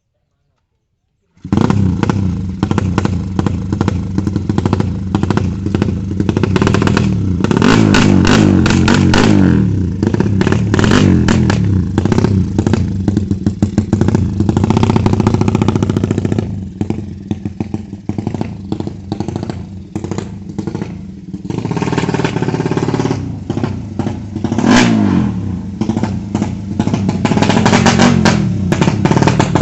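Suzuki Satria FU drag-bike engine, bored to 200 cc, revving hard. The revs climb in sweeps several times amid rapid crackling. The sound starts abruptly about a second and a half in.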